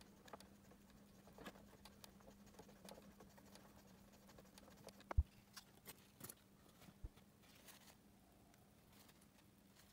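Near silence with scattered faint clicks and taps of hands on the bench equipment, one sharper knock about five seconds in, over a faint steady low hum.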